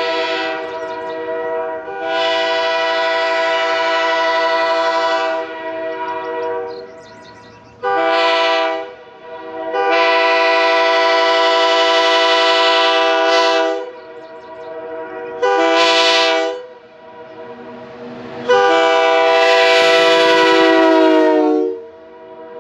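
Sand-cast Airchime K3H three-chime train horn blowing a series of blasts on air: long, short, long, short, then a last long blast that sags in pitch as it cuts off. Its number 1 bell still has a slight warble.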